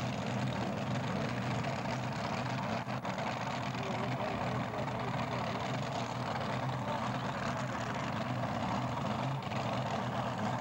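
Small tractor-pulling machine's engine idling steadily at the start line.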